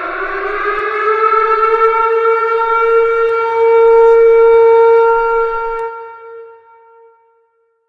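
Civil defense siren sounding a nuclear attack warning: one loud wail whose pitch climbs slowly to a steady tone, then dies away about six seconds in.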